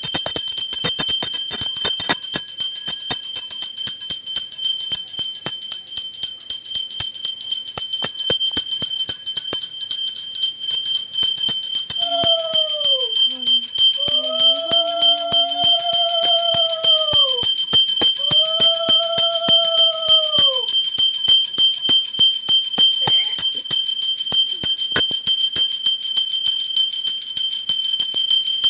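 A puja bell rung rapidly and continuously, a fast run of strikes over a steady high ringing. Partway through come three long horn-like tones, each bending up at the start and falling away at the end.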